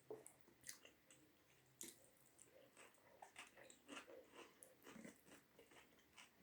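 Close-up chewing of a mouthful of rice and curry: soft, wet mouth clicks and smacks coming irregularly several times a second, with a few sharper crunchy bites.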